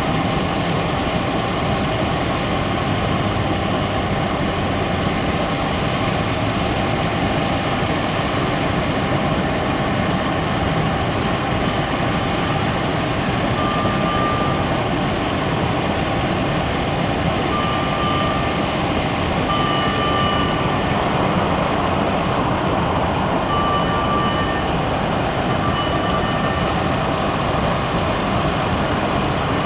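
Steady engine noise of an Embraer ERJ190 airliner on the ground, a rumble and hiss that the uploader calls a strange, abnormal noise. Short high beeps come and go through the second half.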